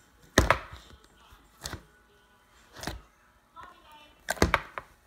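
Butter slime being squished and stretched in the hands, making a few short, separate sticky clicks and pops.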